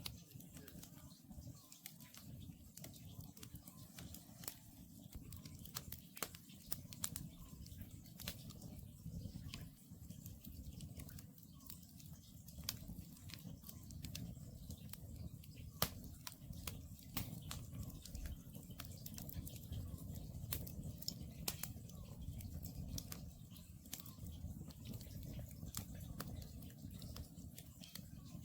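Wood campfire crackling: frequent irregular pops and snaps over a low, steady rumble, with one louder pop about sixteen seconds in.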